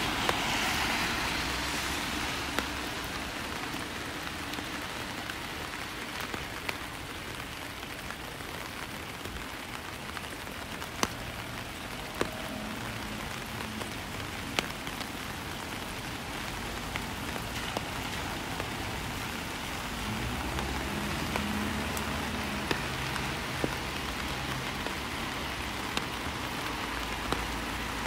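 Steady rain falling, a continuous even hiss with occasional sharp ticks.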